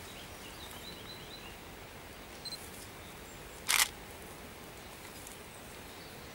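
Quiet garden ambience with a few faint high chirps, and one short noisy burst, the loudest sound, a little under four seconds in.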